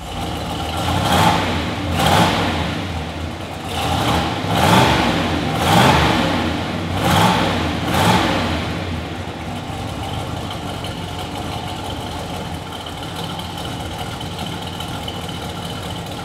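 A 1969 Chevelle SS396's L78 396 big-block V8 (solid lifters, Holley carburettor) running through its dual exhaust. It is blipped about seven times in quick revs over the first eight seconds, then settles to a steady idle.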